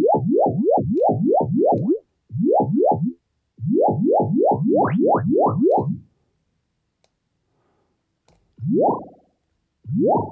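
Synthesized water-droplet bloops from the Vital software synth: quick upward pitch sweeps played in fast runs of about three or four a second, each smeared by a very short modulated delay into a watery texture. After a pause of about two seconds, two single droplets sound near the end.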